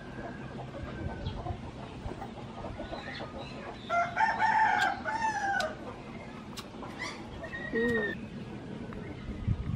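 A rooster crows once about four seconds in, a long call that holds and then falls away at the end, with a shorter call near the end.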